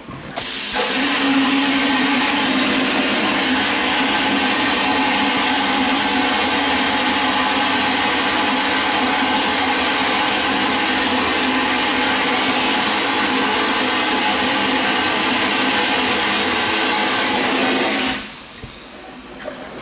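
Vapor blasting gun spraying wet abrasive slurry onto a motorcycle carburetor's brass throttle flap inside a blast cabinet: a loud steady hiss with a faint hum under it. It starts about half a second in and cuts off about 18 seconds in.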